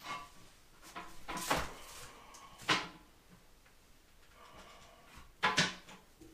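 A porcelain toilet tank being lifted off its bowl: a few short clunks and knocks of ceramic and handling, the sharpest about two and a half seconds in and again about five and a half seconds in.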